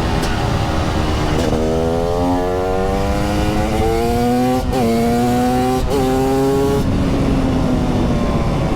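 TM SMR 300 single-cylinder two-stroke supermoto engine pulling hard, its note climbing under acceleration. It dips briefly at two quick upshifts about four and a half and six seconds in. Near the end the throttle shuts and the note falls away as the bike coasts.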